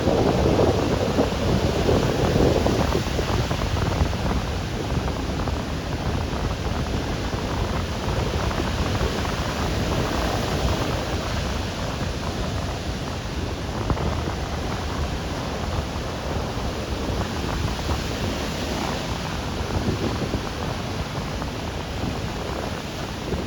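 Ocean surf washing on a beach, a continuous rushing hiss that swells slightly in the first few seconds and again around the middle, with wind buffeting the microphone.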